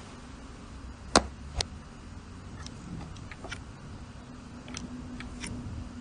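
Two sharp clicks a little over a second in, followed by a scatter of fainter light clicks and taps from small hard objects being handled, over a faint steady hum.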